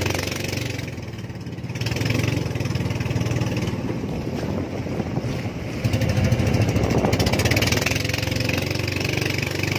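Small fishing bangka's engine running steadily, louder from about six seconds in as it throttles up.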